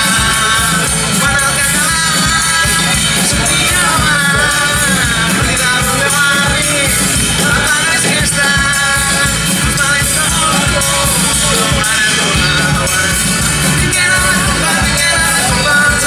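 Live band playing amplified music through a PA: accordion, acoustic and electric guitars over a drum kit, with a steady beat.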